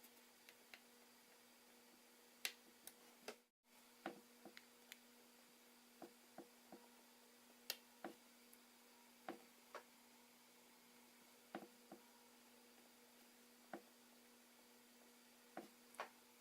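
Near silence over a steady low hum, broken by scattered faint clicks and taps of small tools and iPhone 4S parts being handled during reassembly, with a brief dead gap about three and a half seconds in.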